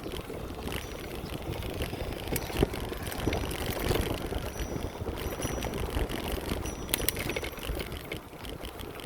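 Bicycle riding noise: wind on the microphone and tyres rolling on the path, with a few sharp clicks and rattles from the bike, the strongest about two and a half and seven seconds in.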